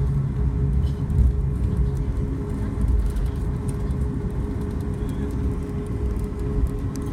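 Boeing 737 MAX 8's CFM LEAP-1B engines heard from inside the cabin, running at high power with a deep rumble and a steady droning tone.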